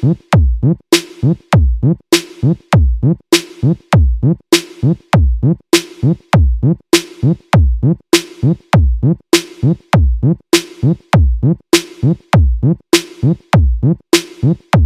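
Electronic sound-check music: a drum machine beat with deep, booming bass kicks that slide down in pitch, sharp hits above them and a steady held synth note, repeating evenly throughout.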